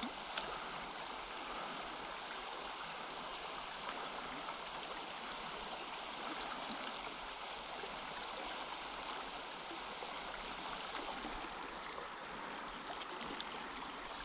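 Small stream's current flowing steadily, an even rush of water. A brief click comes about half a second in and another just before four seconds.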